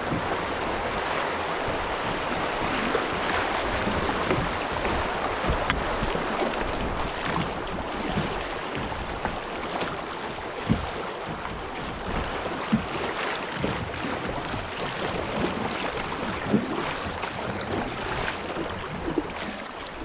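Creek water rushing through a riffle around a kayak, easing a little as the water calms, with a few sharp paddle splashes in the second half.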